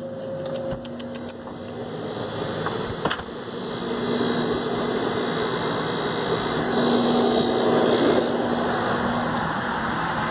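Steady mechanical rushing noise with a low hum, growing louder about four seconds in. A quick run of about eight clicks comes in the first second and a half.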